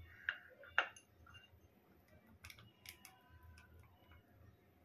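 Faint, scattered light clicks and ticks as chocolate chips are picked by hand from a small glass bowl and sprinkled over ice cream mix in a plastic tub.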